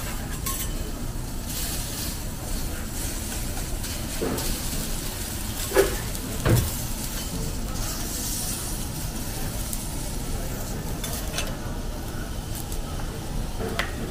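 Metal teppanyaki spatulas scraping and clinking on a steel griddle as a prawn sizzles, over a steady background din; two sharper clanks of metal on metal about six seconds in.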